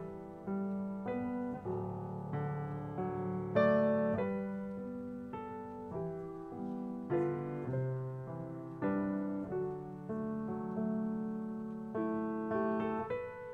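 Grand piano playing a slow, gentle piece: chords struck one after another, each left to ring and fade before the next.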